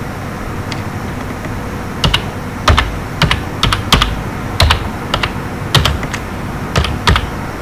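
Computer keyboard being typed slowly, single keystrokes clicking at uneven intervals, most of them from about two seconds in.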